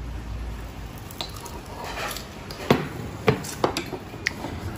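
Tableware clinking on a table: a handful of separate clicks and knocks of dishes and a metal spoon, the loudest about three seconds in.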